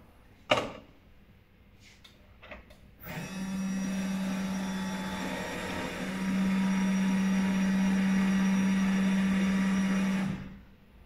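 Coffee vending machine making a drink: a sharp click and a few small clicks, then its dispensing and mixing motors run with a steady hum for about seven seconds, getting louder about six seconds in, and stop suddenly.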